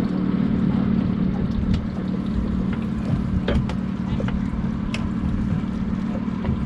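Boat engine running at a steady pitch, with wind buffeting the microphone and a few light clicks about halfway through.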